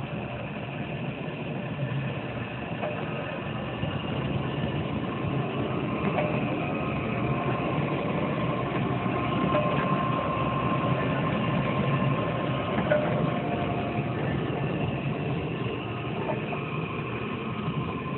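Oil well pumpjack running steadily, a continuous mechanical sound with a faint high whine over it.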